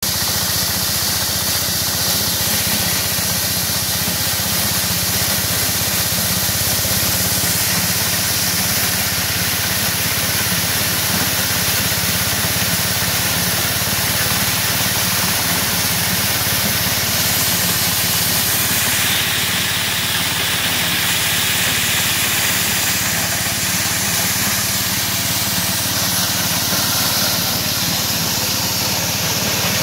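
Belt-driven multi-crop thresher shelling maize cobs, powered by a small single-cylinder stationary engine. The engine runs at a steady drone under a continuous hiss from the threshing drum and the grain.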